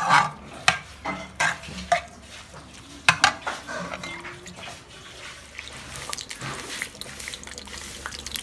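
Metal spoon stirring and mashing cooked brinjal and cucumber in an aluminium kadai, with sharp clanks and scrapes of the spoon against the pan. About halfway through these give way to a quieter, steady hiss with faint crackles.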